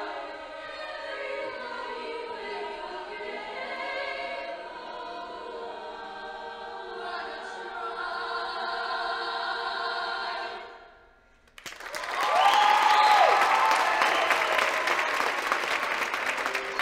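Show choir singing held chords in close harmony, fading out about eleven seconds in. After a brief gap, the audience breaks into loud applause and cheering.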